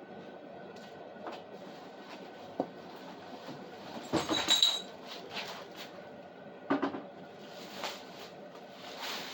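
Steady roar of a running propane heater, with scattered knocks and a burst of metallic clatter about four seconds in that carries a brief high squeal.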